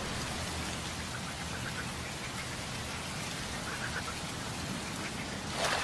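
Steady watery hiss, like rain or moving water, with a brief louder surge just before the end.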